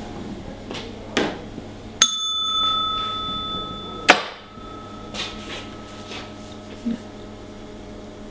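A small service bell is struck twice, about two seconds apart. The first ring holds steady until the second strike, which then fades away over a couple of seconds. A few light knocks and a steady low hum lie underneath.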